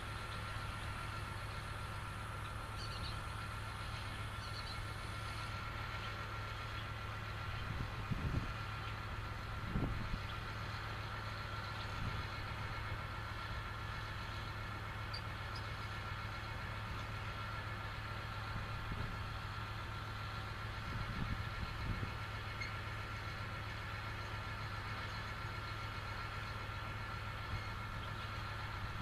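An engine running steadily with a low hum and a faint steady whine, broken by a few soft knocks.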